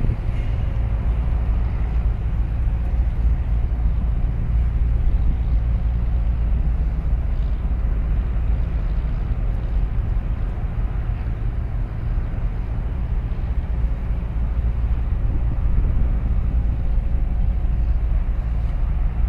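Steady low engine rumble from a large container ship leaving its berth, even throughout with no distinct events.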